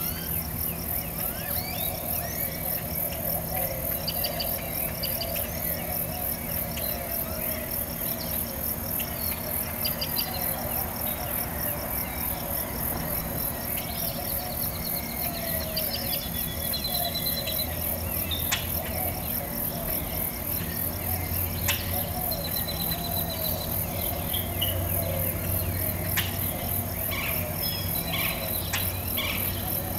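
Insect chorus: a fast, even, high-pitched chirping that keeps going steadily.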